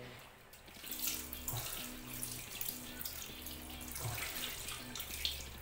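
Water splashing and pouring as a plastic dipper scoops from a bucket and is tipped out, starting about a second in.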